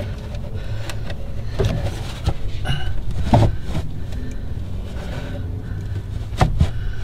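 Hands shoving a carpeted JL Audio Stealthbox subwoofer enclosure against the car's trunk panel, giving scattered knocks and scrapes over a steady low hum; the loudest knocks come about halfway through and near the end. The box is being forced onto its mounting bolts and will not line up with them.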